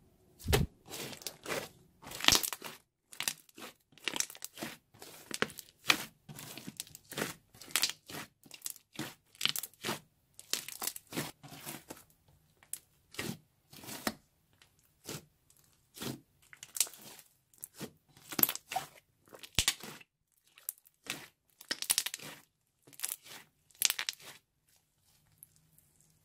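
Hands squeezing, poking and folding a sheet of glossy slime: irregular sticky crackles and squelches as air pockets pop, about one or two a second, stopping shortly before the end.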